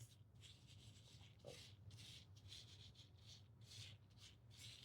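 Faint, repeated swishing of a brush sweeping rhinestones across a rhinestone template, about two to three strokes a second.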